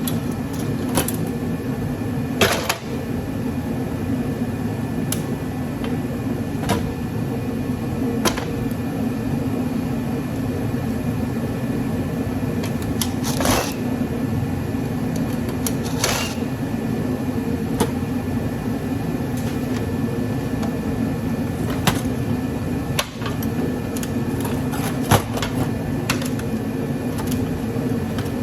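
Scattered sharp clicks and knocks of metal scrap parts being handled, over a steady background hum.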